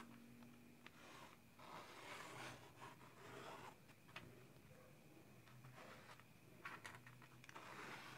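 Faint scratching of a pen tracing around the edge of a wooden template onto EVA foam, in a few short strokes with light clicks between.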